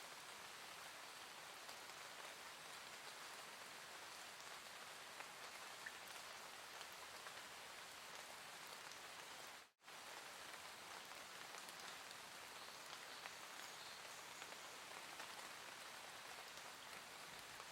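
Faint, soft, steady rain: an even hiss with scattered light drop ticks. It cuts out to silence for a split second about ten seconds in.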